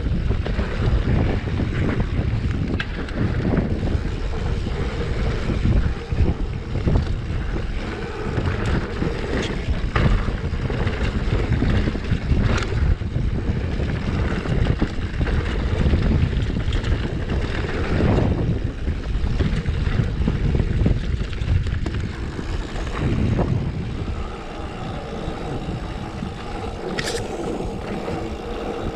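Wind rushing over the camera microphone with the Specialized Stumpjumper mountain bike's tyres rolling over dirt and scattered rattles and knocks from bumps on a fast descent. It gets quieter and steadier in the last few seconds.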